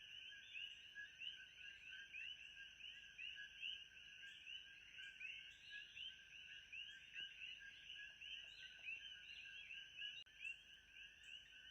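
Faint, steady chorus of many short, rapid chirping calls overlapping without pause, over a thin constant high-pitched tone: a background nature-ambience track.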